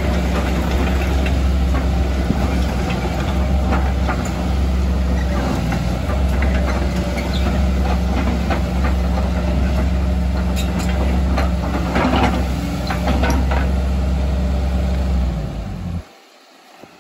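Kobelco SK140 hydraulic excavator's diesel engine running steadily while the arm and bucket are worked, with occasional knocks and clinks. The sound cuts off suddenly about a second before the end.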